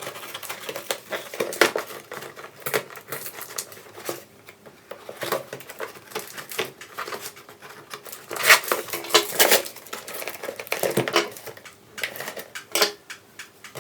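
A parcel box and its packaging being opened by hand: irregular rustling, scraping, clicking and tearing, with a louder flurry of rips past the middle.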